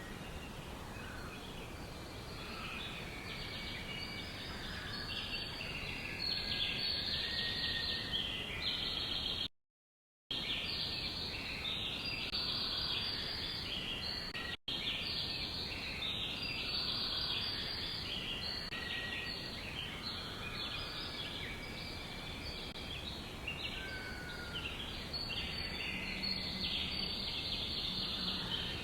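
Many small birds chirping and twittering at once in a dense, overlapping chorus. The sound drops out completely for under a second about ten seconds in, and again for an instant a few seconds later.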